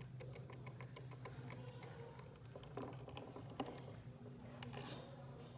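Small, rapid, irregular clicks and ticks of a T8 Torx screwdriver turning screws out of a Bose SoundLink Mini II speaker.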